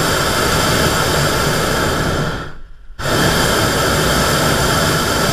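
Hot air balloon propane burner firing with a loud, steady rushing noise. It cuts out about two and a half seconds in, then fires again for a second blast.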